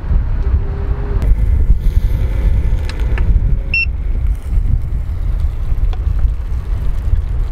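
Wind buffeting the microphone outdoors: a loud, steady low rumble, with a few faint clicks and one short high chirp about four seconds in.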